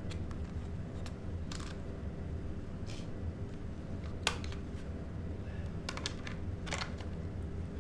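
Scattered plastic clicks and light knocks from hands fitting an RC car's plastic battery holder and its wiring, with one sharp click about four seconds in and a cluster near the end. A steady low hum runs underneath.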